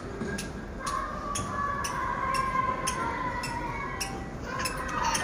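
Footsteps clicking on brick paving, about two a second, with a high wavering call over the middle of the stretch and again near the end.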